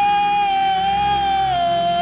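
A singer holding one long note in a worship song, stepping down slightly in pitch near the end, over steady backing music.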